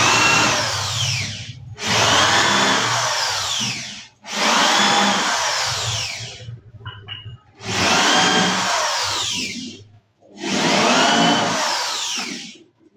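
Corded electric drill driving screws into a melamine-faced particleboard cabinet top. It runs in five bursts of about two seconds each, with short pauses between, and its whine falls in pitch during each burst.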